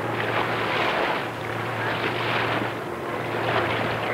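Sea water rushing and washing against the boats, swelling and easing in three surges, over a steady low hum on the old film soundtrack.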